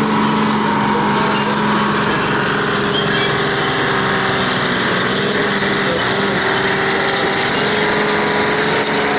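Antique tractor engines running steadily, with a mix of engine tones that waver slightly in pitch.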